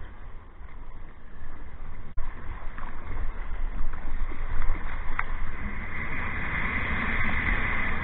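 Sea water rushing and splashing around a surf kayak in breaking waves, with a low buffeting rumble on the camera's microphone. The rush grows louder and hissier over the last few seconds as whitewater builds around the boat.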